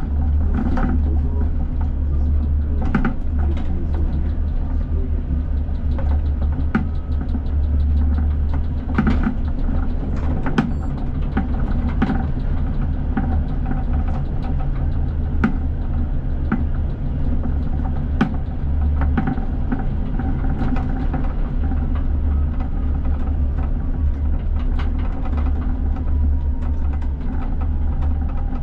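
Coupled pair of ČKD Tatra T6A5 trams running along the track, heard from the driver's cab: a steady low rumble with irregular clicks and knocks from the wheels on the rails, and a faint whine that comes and goes.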